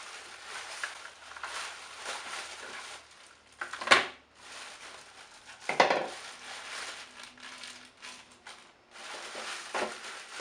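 Packaging rustling as plastic vacuum-cleaner attachments and accessories are taken out of the box and handled, with two sharp clacks of parts knocking together, about four and six seconds in.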